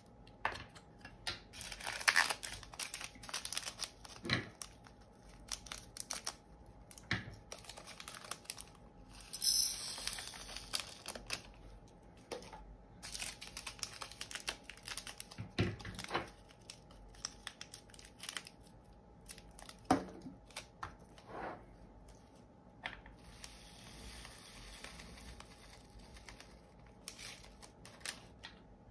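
Small plastic bags of diamond-painting drills crinkling and tearing open, with scattered light clicks and taps between and a longer stretch of rustling near the end.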